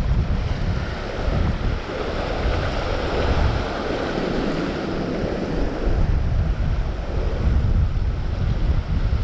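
Strong gusting wind buffeting the microphone over waves washing in and breaking against shoreline rocks.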